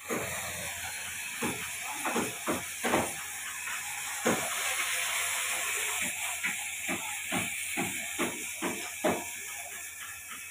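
Irregular sharp knocks and taps, a few a second, over a steady hiss.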